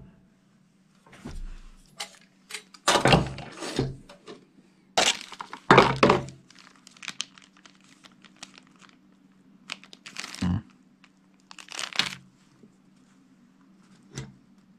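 Handling a fuel pump and sending unit assembly on a workbench: a string of irregular knocks, clunks and rattles of metal parts, with a plastic bag being handled.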